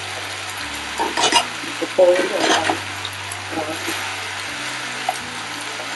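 Rice noodles, bean sprouts and chives sizzling in a frying pan while being stir-fried with a wooden spatula, a steady hiss with louder stirring strokes about one and two seconds in.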